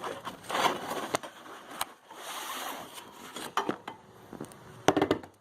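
A cardboard box and its packing being opened and handled: rustling and scraping, with scattered sharp clicks and a short burst of knocks near the end.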